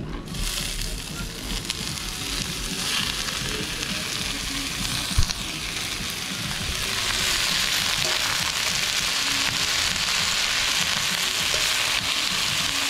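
Sliced sweet peppers, cabbage and onion sizzling in hot avocado oil in a wide aluminium pan as they are tipped in and stirred; the sizzle grows louder about seven seconds in. A single sharp knock about five seconds in.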